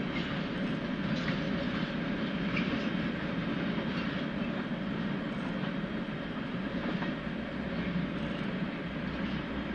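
Freight train of tank wagons rolling away along the track: a steady rumble of wheels on rails, with a few faint clicks from the wheels.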